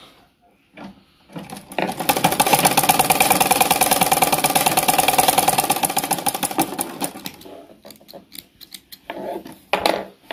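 Black domestic sewing machine stitching rapidly for about five seconds, then slowing and stopping, followed by a few separate clicks.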